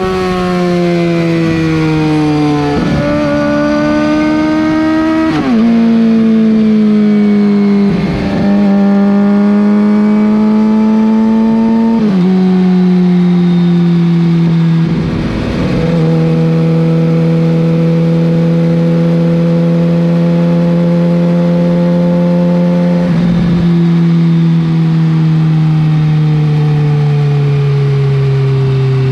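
2007 Suzuki GSX-R 750's inline-four engine heard right at its Yoshimura R55 slip-on exhaust, running at moderate revs. The exhaust note sags slowly in pitch and breaks briefly about five times, stepping to a new pitch after each break, as on gear changes.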